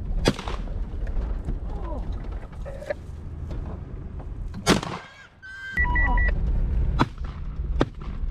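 Vehicle driving over very rough ground: a steady low rumble with sharp knocks and jolts from the cab, and a brief electronic beeping about six seconds in.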